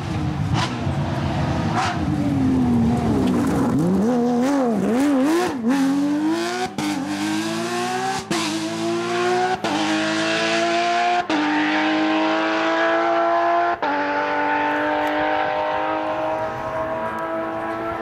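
Porsche 997 GT3 rally car's flat-six engine revving up and down for a few seconds, then accelerating hard: the pitch climbs in each gear and drops back at a string of quick upshifts, each marked by a brief dip in sound. It grows a little fainter near the end.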